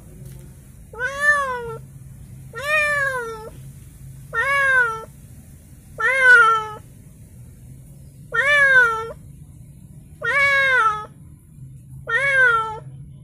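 A Persian-cross domestic cat meowing over and over: seven drawn-out meows about two seconds apart, each rising and then falling in pitch. The owner puts the crying down to the cramped temporary cage the newly arrived cat is kept in.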